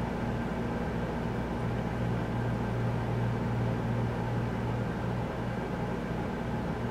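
Steady low hum with an even hiss underneath, unchanging throughout.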